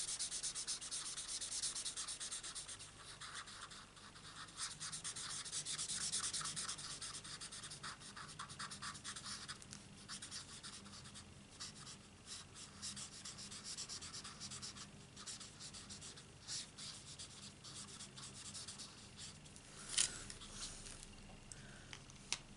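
Marker nib scratching and rubbing on cardstock in many quick short strokes while shading. The strokes are busiest in the first half and thin out to sparse, fainter strokes, with a light click near the end.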